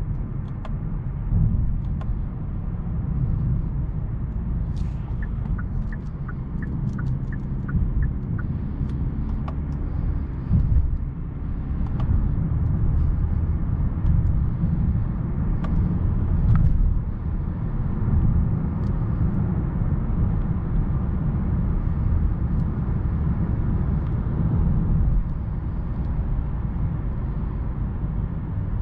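Steady low road and running noise of a 2022 Kia K8 G2.5, its 2.5-litre four-cylinder petrol engine with eight-speed automatic, under way. A short run of evenly spaced faint ticks comes about five seconds in.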